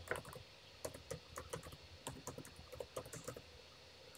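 Typing on a computer keyboard: a faint, irregular run of key clicks.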